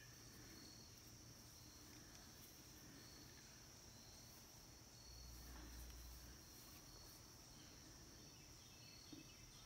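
Near silence: room tone with a faint, steady high-pitched hiss.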